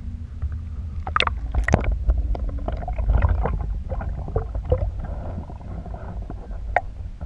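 Muffled underwater sound through a GoPro's waterproof housing: a steady low rumble of moving water with many scattered clicks and small bubbling pops.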